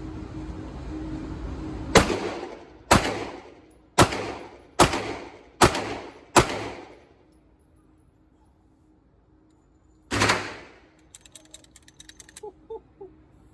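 Six gunshots fired at a steady pace, about one every 0.8 seconds, each with a short trailing echo, then a single further shot about ten seconds in, followed by light rapid clicking.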